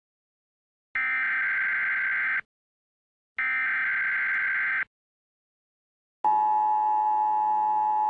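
Emergency Alert System tones: two bursts of the digital header, each about a second and a half long with a second of silence between, then, about six seconds in, the steady two-tone attention signal begins.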